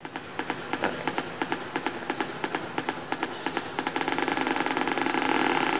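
Sound-art installation audio: scattered sharp clicks that quicken into a dense, fast rattle over a steady layered hum, which swells about four seconds in.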